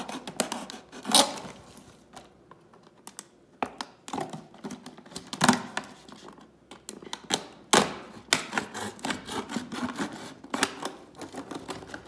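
Utility knife blade cutting through the thin wall of an empty plastic water bottle: irregular clicks and crackles of the plastic as the blade is worked along, with louder snaps about a second in and in the middle, and a dense run of clicks near the end.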